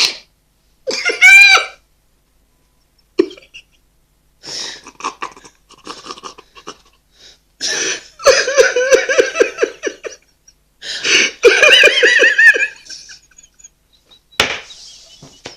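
People laughing in fits, with breathy giggles and short vocal noises between the runs of laughter.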